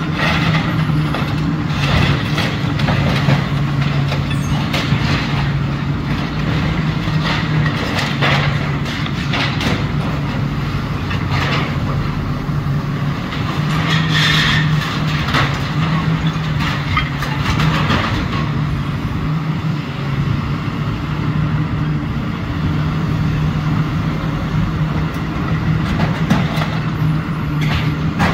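Komatsu PC360LC excavator's diesel engine running steadily, with repeated crunches, clanks and scraping of building material as the machine demolishes the structure. A brief high screech comes about halfway through.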